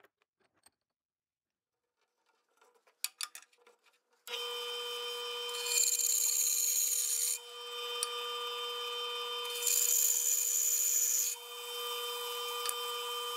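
A few light handling clicks, then a bandsaw starts running with a steady hum about four seconds in. Twice it gets louder and hissier as the blade cuts through a dark hardwood handle blank.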